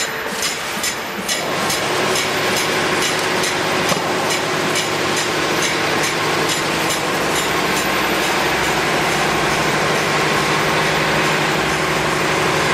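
Spiral paper tube winding machine running. A quick regular ticking, about three or four ticks a second, lasts for the first second and a half. Then a louder, steady mechanical running noise with a constant hum takes over.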